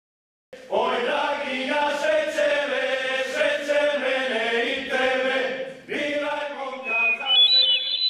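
Background music: a choir chanting in several held, overlapping voice parts, starting about half a second in, with a brief break near six seconds. Near the end, high held notes of another piece of music come in over it.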